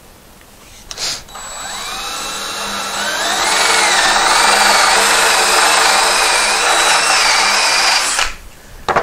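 Cordless drill boring a flat-bottomed 1 3/8-inch hinge-cup hole in a poplar cabinet door with a Forstner bit. After a click about a second in, the motor whine climbs and the bit chews into the wood, the pitch wavering under load for about five seconds, then it stops abruptly.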